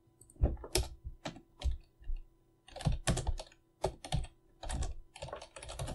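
Typing on a computer keyboard: a few separate keystrokes, then quicker runs of keystrokes from about two and a half seconds in.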